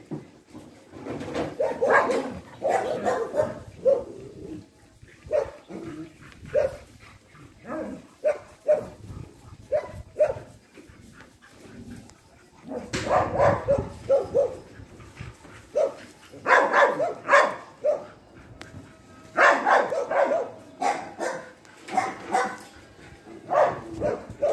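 Dogs barking and yipping in short bursts while they chase and wrestle in play, with clusters of rapid barks several times and quieter gaps between.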